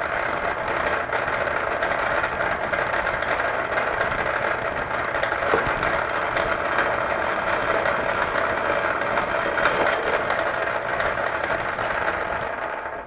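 Metal lathe running steadily while taking a spring cut, a final pass of the threading tool at the same depth to clean up the thread. The running noise dies away near the end as the machine is stopped.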